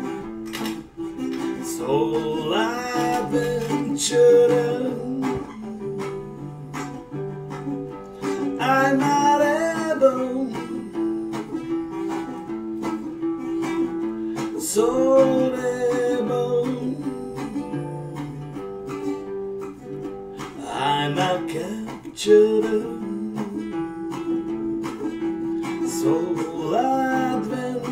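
Caramel guitalele strummed in a steady chord pattern. A voice sings short phrases over it every few seconds.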